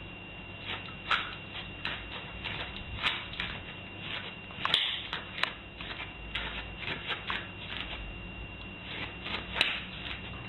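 A small dog scrabbling and stepping about on a doormat and tile floor: irregular scratches and claw clicks, dozens of them, a few louder than the rest, over a faint steady high whine.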